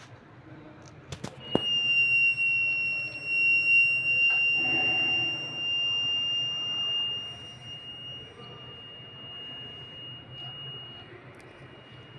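Buzzer of a homemade BC547 transistor smoke-detector circuit sounding one steady high-pitched tone. It starts about a second and a half in, after a few clicks, and grows quieter in the second half. This is the alarm set off by smoke or gas reaching the MQ-2 sensor.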